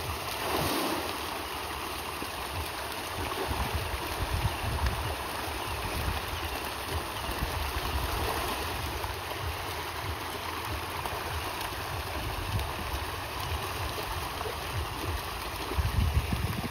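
Steady outdoor water noise, with gusts of wind rumbling on the microphone that are strongest near the end.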